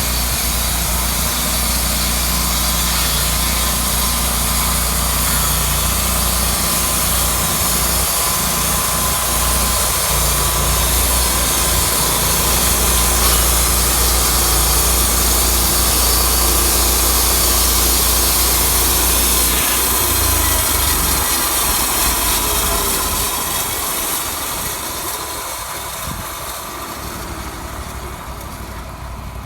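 Sawmill blade cutting through a spruce log, with the mill's engine running steadily underneath; both fall away over the last few seconds.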